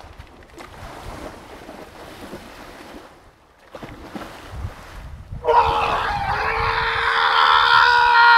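Sea water sloshing and splashing as a man wades in and dives under, then, about five and a half seconds in, a man's long, loud yell held on one pitch.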